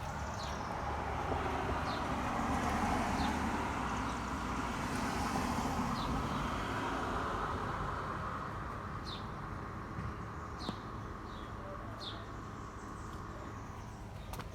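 A passing car, its road noise swelling over the first few seconds and slowly fading, with short bird chirps every second or two.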